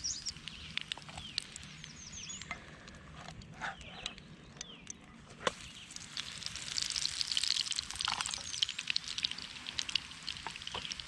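Songbirds chirping and singing, short rising and falling calls over and over, with a busier stretch of rapid chirps about halfway through.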